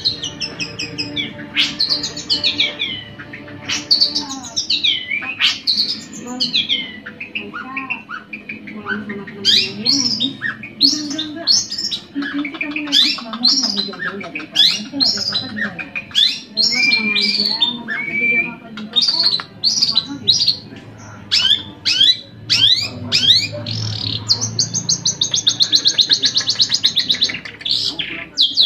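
Long-tailed shrike (cendet) in full song: a quick, unbroken run of sharp, falling whistled notes. Near the end it breaks into a fast, even rattle, the 'cetrekan' chatter.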